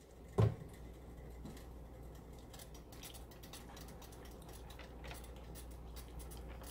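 A single thump about half a second in, then faint scraping and ticking of a whisk stirring thick barbecue sauce in a large stainless steel stockpot, over a steady low hum.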